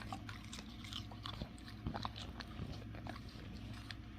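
A dog chewing and crunching a snack: irregular, quick crunches one after another, over a faint steady low hum.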